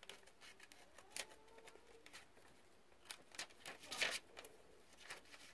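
Scissors cutting paper: scattered small snips and paper rustles, with a louder cluster about four seconds in.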